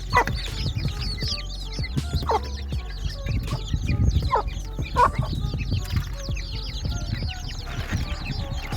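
A brood of baby chicks peeping continuously in a dense chorus of short high chirps, with four louder, lower calls from a hen clucking among them in the first five seconds or so.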